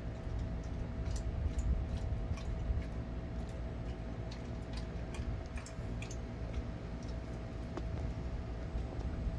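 A dog licking and smacking its lips on sticky peanut butter: irregular wet clicks, a few a second, over a steady low background hum.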